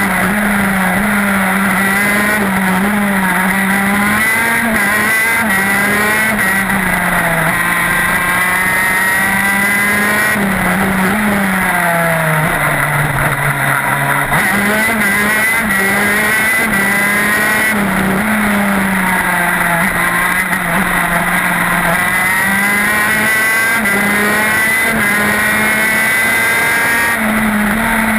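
TM K9B 125cc two-stroke shifter kart engine running hard on board at racing speed. Its note rises and falls continuously, drops lowest for about two seconds some twelve seconds in, then climbs again.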